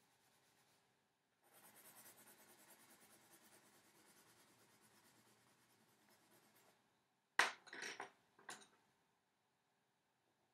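Pencil scratching on paper in quick, repeated strokes for about five seconds, faint. About seven seconds in come three sharp knocks, the loudest sounds here, as the pencil is put down and swapped for a colour pencil.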